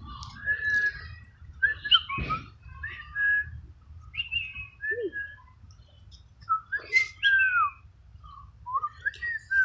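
A talking parrot giving a string of short whistles and chirps, scattered notes with pauses between them, some gliding down in pitch.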